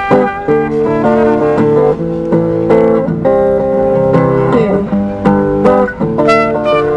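Music: an instrumental passage with guitar playing plucked and strummed notes.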